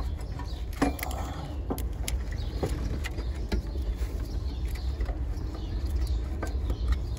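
Scattered light clicks and knocks of metal parts as a replacement alternator is worked by hand into its mounting in a car's engine bay, the sharpest knock about a second in, over a steady low rumble.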